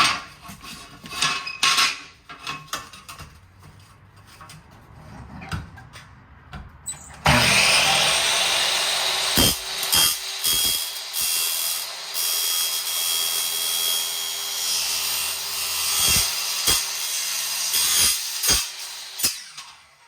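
A few seconds of light metallic clinks and handling knocks, then a power saw with a 40-tooth carbide-tipped wood blade starts suddenly about seven seconds in and cuts through thin aluminum slowly, a loud, harsh, high-pitched cutting noise with a few sharp knocks, stopping just before the end.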